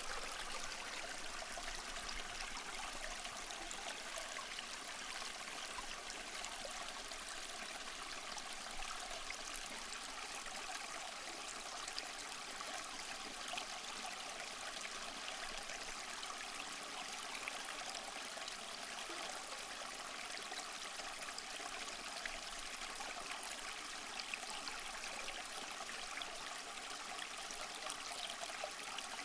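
Water churning steadily in a bucket as a portable bucket washing machine agitates a load of clothes.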